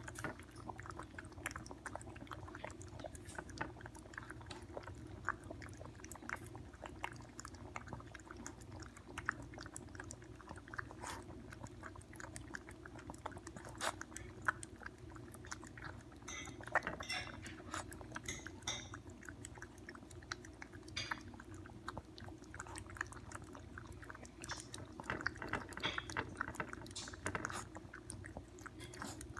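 Toy poodles lapping milk from a bowl: a steady run of quick lapping clicks, many a second.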